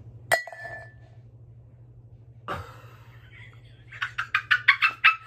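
A thrown marker hits a ceramic mug with a sharp clink and a brief ring, followed by a softer knock about two seconds later. Near the end a woman laughs in quick, rhythmic bursts, the loudest sound.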